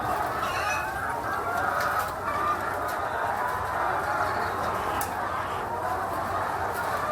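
A flock of chickens clucking and calling over one another in a steady, continuous din.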